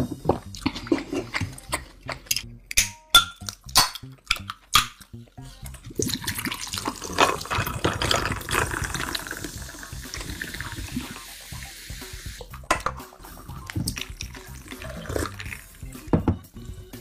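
Cola poured from a can into a glass of ice for about six seconds in the middle, a steady splashing pour. Before and after it, close-miked chewing with sharp mouth clicks.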